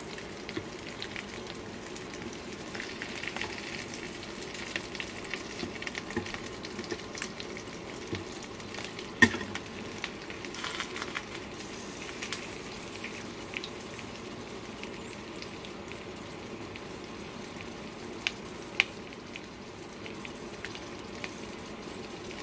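Stuffed zucchini boats frying in butter in a stainless steel skillet: a steady sizzle with scattered small crackles and pops. A sharp click stands out about nine seconds in, and another near the end.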